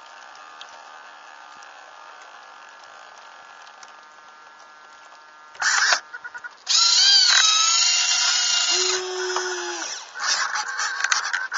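A steady low hum with faint steady tones. From about halfway, loud bursts of whirring, drill-like motor whine that waver up and down in pitch: the onboard sail-winch or rudder servo of the radio-controlled Mini40 hydrofoil trimaran working, with a short burst, a few ticks and a longer run of about three seconds.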